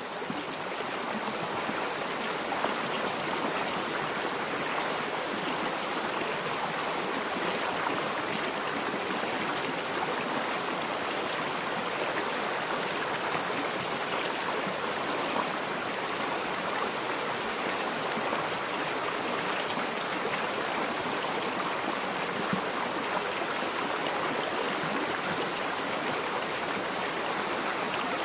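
A river flowing through a forest: a steady rush of running water, fading in over the first second.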